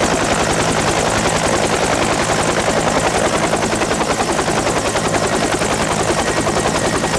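Hawker Sea Hurricane's Rolls-Royce Merlin V12 engine running steadily: a loud, fast, even throb with no change in pitch.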